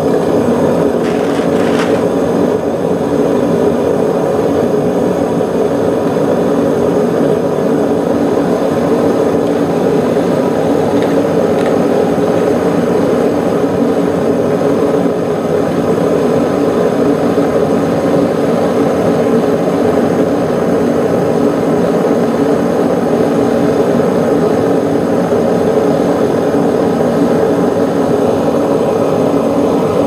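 Propane furnace burner running with a steady, even rushing noise while aluminium cans are melted. A couple of faint clinks about one to two seconds in as a can goes into the crucible.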